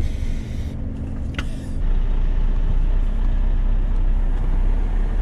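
Truck diesel engine heard from inside the cab, idling at first and then, about two seconds in, running deeper and louder as the truck pulls away.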